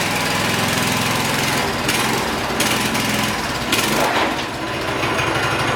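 An engine running steadily with a rapid low pulse, with brief bursts of hiss over it.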